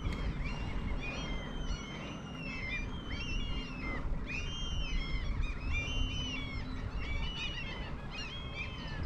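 Small birds chirping and twittering over and over, with many short rising and falling calls, above a steady low rumble.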